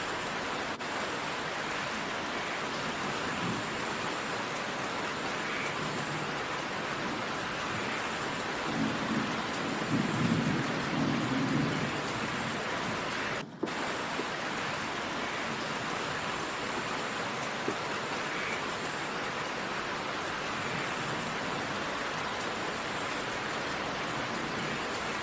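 Steady heavy rain downpour, with a low roll of thunder about nine seconds in that lasts two or three seconds. The sound drops out for a split second just past halfway.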